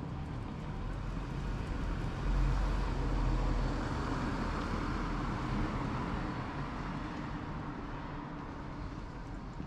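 A motor vehicle passing close by: a low rumble with road noise that swells, is loudest about two to four seconds in, then slowly fades away.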